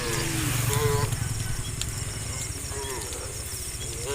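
Brief, separate snatches of people's voices over steady outdoor background noise.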